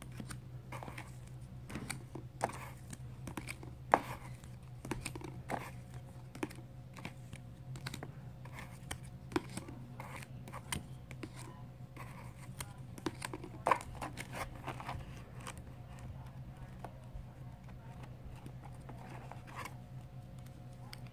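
Rigid Ultra Pro plastic card holders clicking and tapping against one another as they are handled and shuffled in a box, in irregular single clicks. A low steady hum runs beneath.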